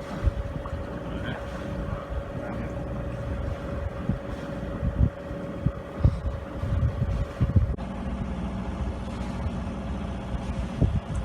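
Wind buffeting the microphone over the steady drone of a sailboat's motor. About eight seconds in, the sound changes abruptly to a different steady hum.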